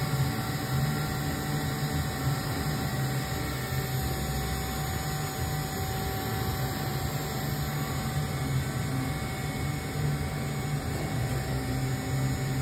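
Steady mechanical hum of a powered-up CNC vertical machining center (Dugard Eagle 850): a low drone with one thin, steady higher tone held throughout.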